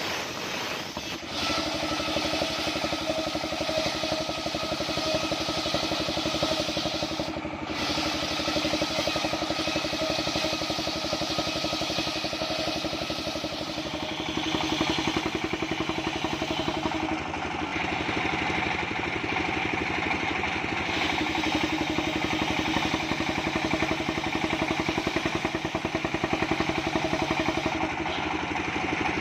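The engine of a homemade circular sawmill running steadily. A higher-pitched whine joins about two-thirds of the way through.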